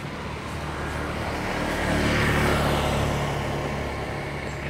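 A motor vehicle driving past: engine and road noise swell to a peak about two seconds in, then fade away.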